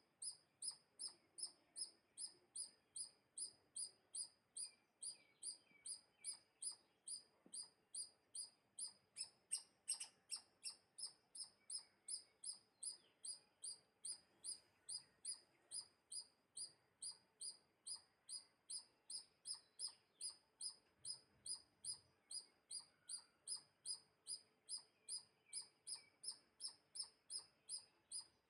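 A small bird's high, thin chirp repeated very evenly, about two and a half times a second, each chirp short and slightly falling.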